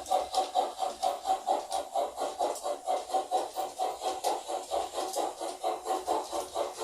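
Steam-locomotive chuffing from the sound decoder of an LGB model of the Saxon IV K narrow-gauge locomotive, played through its small speaker: quick, even exhaust beats at about five a second.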